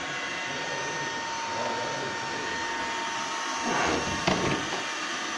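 Robot vacuum cleaner running as it drives across a tiled floor: a steady whirring with a thin whine, and a couple of brief knocks about four seconds in.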